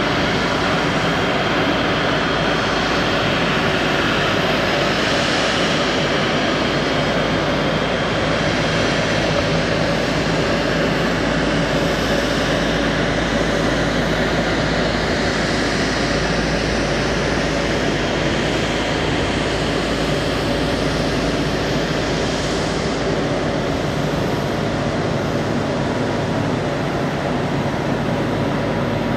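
Boeing 777-300's twin Rolls-Royce Trent 800 jet engines running at taxi power as the airliner taxis past: a steady jet whine over even noise.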